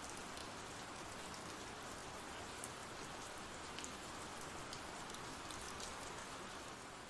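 Steady rain falling: an even hiss with faint scattered ticks of single drops.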